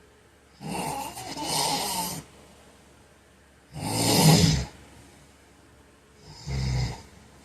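A heavy-set man snoring in his sleep: three snores with quiet pauses between them, a long one starting just under a second in, the loudest around four seconds in, and a short one near the end.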